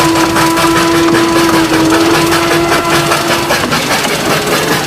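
A small motor running steadily with a loud hiss and a fine, rapid pulsing; its hum fades about three and a half seconds in while the hiss goes on.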